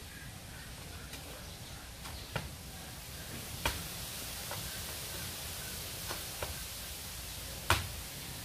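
A few scattered knocks and thuds over a steady hiss, the loudest one near the end: a person's hands and feet landing on the floor during burpees.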